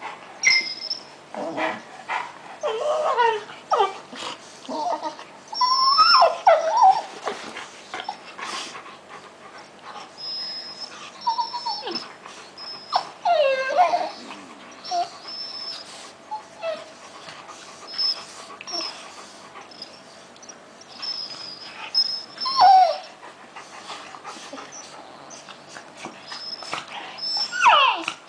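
A dog and a puppy play-fighting, giving short whines and yelping cries that bend up and down in pitch, with little high squeaks and scuffling in between.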